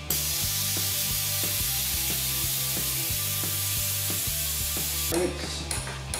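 Steady hiss of compressed air driving a pneumatic vacuum brake bleeder, which draws brake fluid out of the motorcycle's rear brake caliper. The hiss cuts off abruptly about five seconds in. Background music with a steady beat plays underneath.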